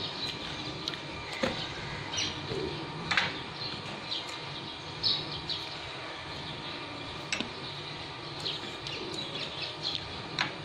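Bird chirping: a dozen or so short, high chirps at irregular intervals over a steady low background noise.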